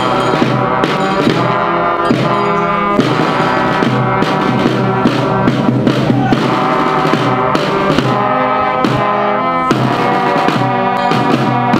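Fanfare of trumpets and trombones playing held chords over field drums beating a marching rhythm.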